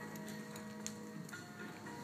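Background music of held notes that change about every second, with a few faint clicks.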